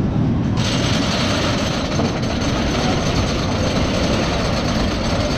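Thunderhead, a GCI wooden roller coaster, with its train running along the track: a steady rumble and clatter of wheels on the wooden structure.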